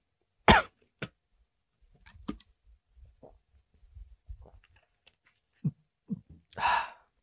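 A person coughing a few times and clearing their throat: two short coughs about half a second apart near the start, faint scattered rustles, then more coughs ending in a longer one near the end.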